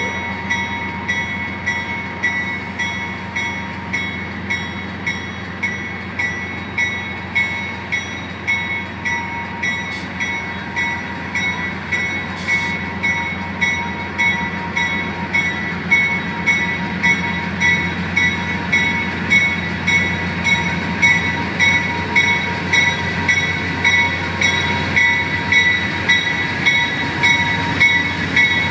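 Amtrak Genesis diesel locomotive's bell ringing in a steady rhythm, a little over one strike a second, as the train pulls slowly along the platform. Under it the diesel engine rumbles, growing louder in the second half as the locomotive comes close.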